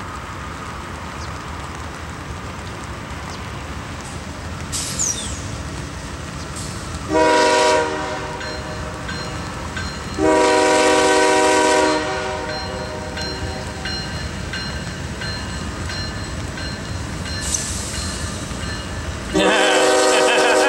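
Air horn of a lead CSX diesel locomotive on an approaching coal train, blown three times over the train's steady rumble: a short blast about seven seconds in, a longer blast about ten seconds in, and another starting near the end.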